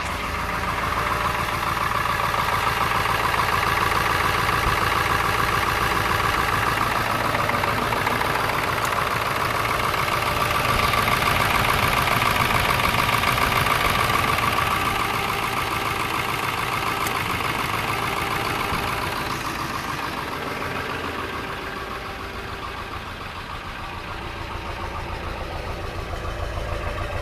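Ford 7.3 L Power Stroke V8 turbodiesel idling with an even, rhythmic running sound; the owner notes a slight shake or misfire. It gets quieter about 20 seconds in, then louder again near the end.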